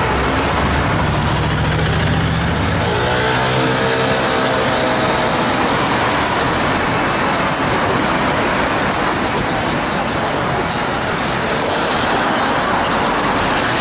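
Dense city street traffic: the steady noise of many car, bus and motorbike engines in slow stop-and-go traffic. A heavy engine's low hum stands out in the first couple of seconds, and a passing vehicle's pitch bends slightly a few seconds in.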